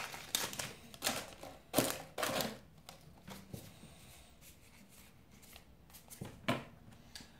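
Magic: The Gathering trading cards being slid out of a booster wrapper and flicked through by hand. A quick run of crisp card snaps and rustles fills the first two seconds or so, then it goes quiet, with a couple more card clicks near the end.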